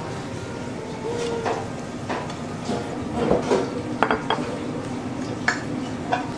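Tableware clinking: a glass dish being set down on a counter, then several light, separate clinks of glass and cutlery over a steady low hum.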